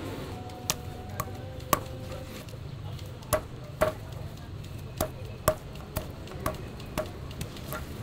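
Knife chopping fruit on a cutting board: about a dozen sharp knocks, spaced unevenly at first, then coming about two a second.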